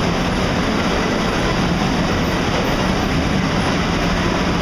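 Steady, loud running noise of a water-ride boat travelling along its course, heard from on board.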